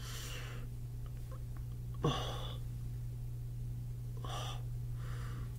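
A man breathing audibly through his nose, about four soft breaths a second or two apart, over a steady low electrical hum.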